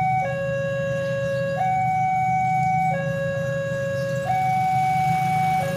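Railway level-crossing warning alarm sounding a two-tone electronic signal, switching between a low and a higher tone about every one and a third seconds, the signal that a train is approaching. A steady low hum runs underneath.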